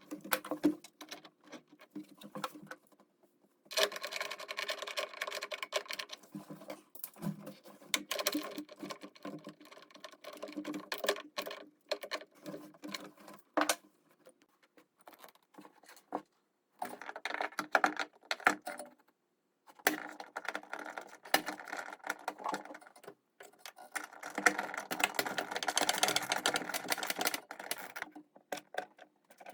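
Rapid clicking and metallic rattling in spells of several seconds, broken by short pauses: hand tools and metal fittings being worked while dampers are bolted into a drum washing machine.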